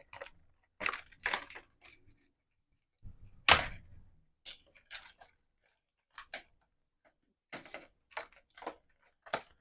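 Thin plastic packaging being cut and pried apart by hand: a scatter of short clicks and crackles, with one louder sharp knock about three and a half seconds in.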